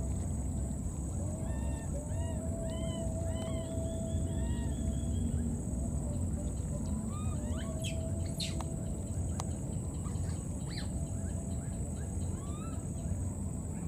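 Baby macaque giving short, high-pitched squeaky calls in clusters, over a steady low rumble of microphone wind noise. A few sharp clicks or rustles come near the middle.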